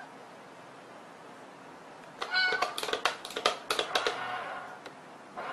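Quiet for about two seconds, then a short meow followed by a quick run of clicks and taps for about two seconds as a cat paws at a mechanical kitty coin bank toy and its top flap flips open.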